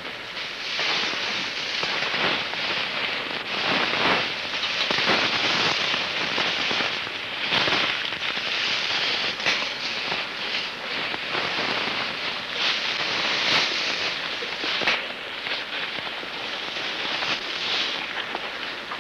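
Continuous rustling and crackling of brush and dry leaves as people push through vegetation, with many sharp snaps and clicks.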